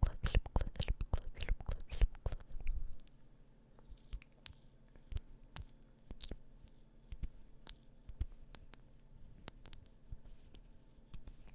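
Close-miked ASMR mouth sounds: quick wet clicks and smacks of the lips and tongue. They come thick and louder for about the first three seconds, then thin out to scattered single clicks.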